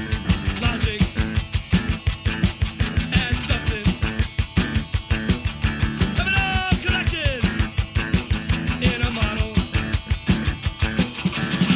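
Fast rock music with guitar and a quick, even drumbeat, with sliding notes about halfway through.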